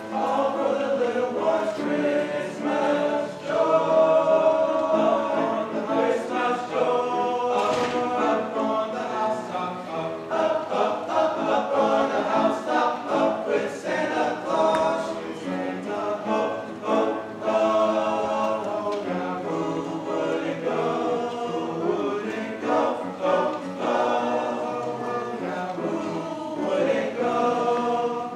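High school men's choir singing together in several-part harmony.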